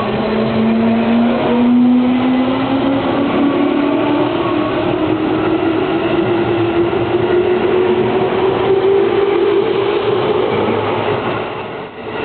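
JR Chuo Line electric multiple-unit train pulling out and accelerating: the traction motors whine, rising steadily in pitch over the rumble of wheels on rail. The sound drops briefly near the end as the last car goes by.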